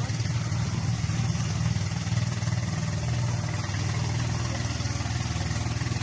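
Boat engine running steadily, a low even hum with a fine pulsing beat and no change in speed.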